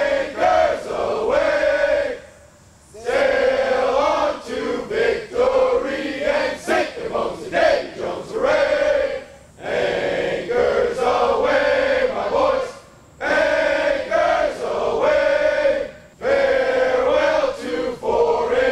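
A large group of sailors singing together in slow phrases of held notes, each a few seconds long, with short breaths between them.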